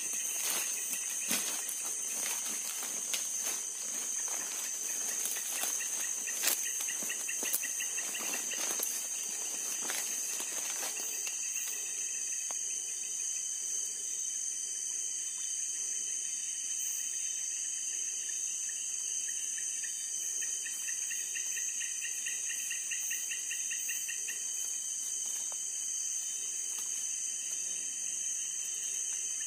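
Night insect chorus of crickets: a steady high-pitched ringing trill throughout, with a lower pulsing trill coming in twice. Over the first ten seconds or so, brushing and rustling of footsteps through wet grass and undergrowth, which then stops.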